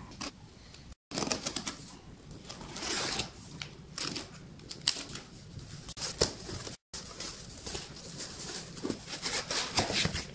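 A taped cardboard box being slit and opened by hand: scratching and rustling of cardboard and packing tape with scattered sharp clicks and taps, and a foam packing block pulled out near the end.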